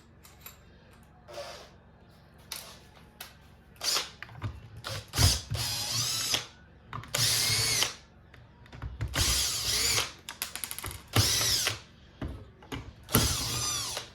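Cordless drill-driver backing out the housing screws of a cordless compressor in about seven short runs, each a whine that rises and falls. A few light clicks come before the first run.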